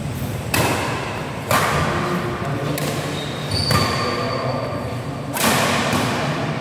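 Badminton rally: rackets striking the shuttlecock four times, a second or two apart, each hit sharp and echoing around a large hall. A short high squeak sounds about midway.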